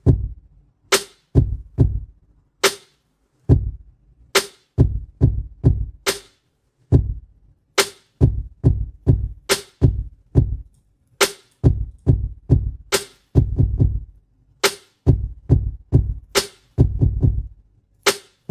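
Programmed trap drum loop from Logic Pro's Drum Machine Designer at 140 BPM: a sampled snare cracks about every 1.7 s over booming trap kick hits. The kick pattern gets busier as more steps are added.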